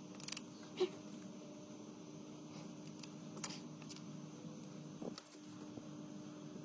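Several light clicks and taps, about six spread unevenly, over a steady hum with a constant low tone.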